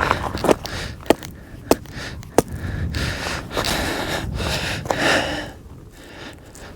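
Four sharp mallet strikes on a tent stake, about 0.6 s apart, followed by heavy breathing. The stake is hitting rock underground and will not go in.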